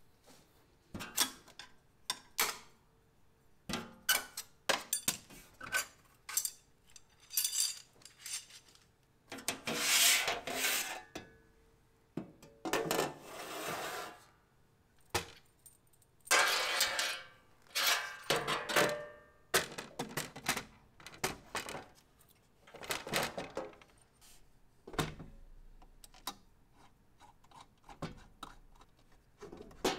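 Handling noise from a CO2 laser cutter being unpacked and set up: a string of clicks, clatters and knocks from its lid, panels and fittings, with several longer scraping sounds lasting a second or two.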